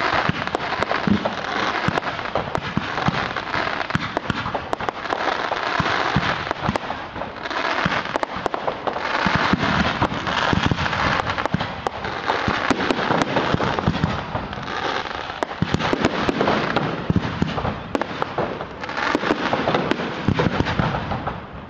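Fireworks display: aerial shells bursting overhead in rapid succession, with dense crackling and many sharp pops and bangs running together, easing off briefly twice.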